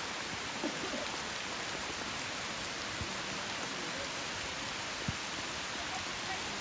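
Steady rushing hiss of water, with a couple of faint knocks.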